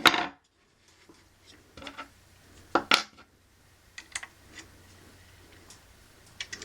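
Light metallic clicks and clinks of an extended hex key working the buttstock screw: a few near two seconds in, the loudest pair about three seconds in, then scattered faint ticks.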